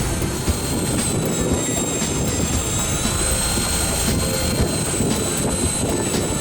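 Steady motor rumble and rushing noise aboard a fishing boat, with a thin high whine running through it.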